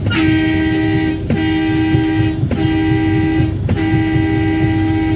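Semi truck's air horn blown four times in a row, each blast about a second long, over the low rumble of the truck's engine.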